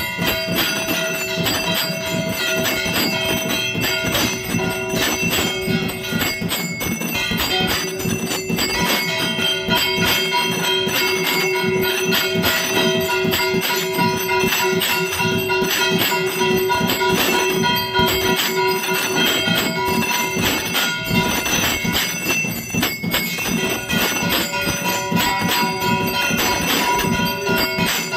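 Brass hand bell rung rapidly and without pause during aarti, a dense clatter of strikes over held ringing tones.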